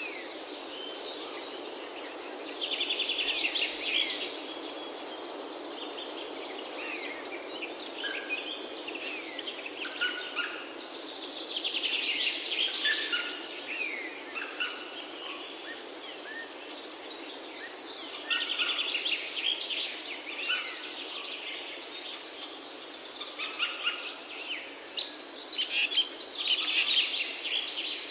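Several forest birds singing over a steady background hiss. One bird repeats a rapid trilled song about every seven seconds, and others give short, high, falling whistles in the first several seconds.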